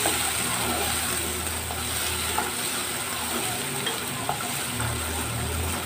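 Chopped onion and tomato sizzling in hot oil in a nonstick kadai, with a spatula stirring and scraping the pan and a few light clicks against it.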